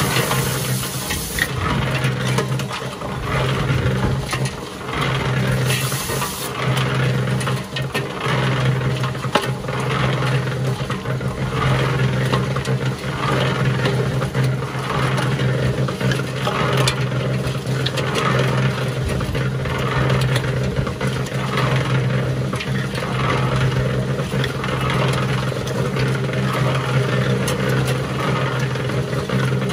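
Harbor Freight electric cement mixer running, its motor humming steadily while the drum turns and the concrete mix and stones tumble and scrape inside. A hose sprays water into the drum with a hiss for the first second or so and again briefly about six seconds in.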